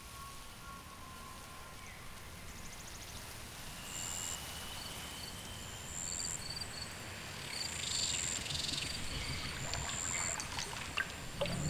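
Outdoor nature ambience that slowly gets louder: a soft, steady rush of water with short, high insect chirps repeating over it.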